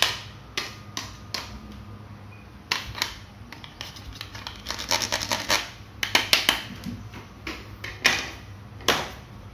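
Hard plastic toys clicking and clacking as they are handled and set down on a table. Scattered single sharp clicks, with quick flurries of clicks about five and six seconds in.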